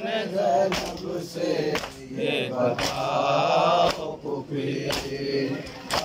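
Men chanting a Muharram noha refrain together, with sharp slaps of hands beating on chests (matam) about once a second.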